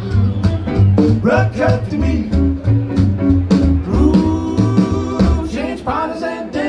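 Live rock'n'roll band playing, with electric guitar, a walking bass, drums and singing.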